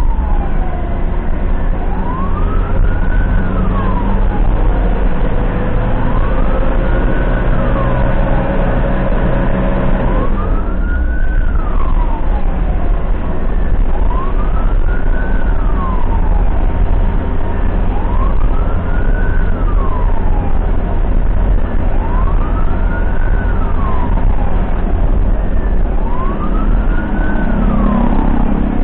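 Ambulance siren wailing, its pitch rising and falling about every two seconds, with the ambulance's engine and road noise droning underneath.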